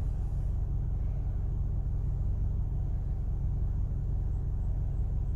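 2006 Toyota Matrix's four-cylinder engine idling steadily, a low even rumble heard from inside the cabin.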